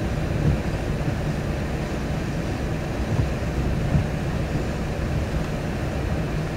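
Steady low rumble of an idling vehicle heard from inside its cabin, with the windshield wipers sweeping across the glass, marked by a small bump about half a second in and another about four seconds in.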